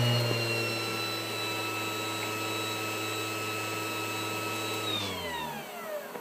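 CNC router spindle motor under Mach3 PWM speed control, running with a steady whine, then spinning down with falling pitch about five seconds in.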